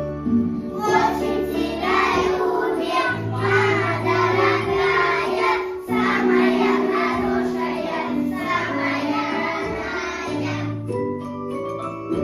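A group of young children singing a children's song together over a keyboard accompaniment; the singing starts about a second in and stops near the end, leaving the keyboard playing.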